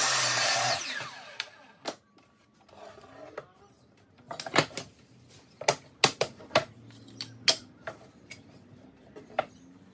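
Makita sliding mitre saw finishing a cut, its motor winding down over the first second or so. Then a string of sharp wooden knocks and clacks as cut timber pieces are picked up, knocked together and set down.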